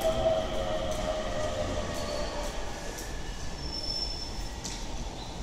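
Keisei electric train moving at the platform: a whine that sags slightly in pitch and fades out over the first two to three seconds, leaving a steady rumble that grows quieter.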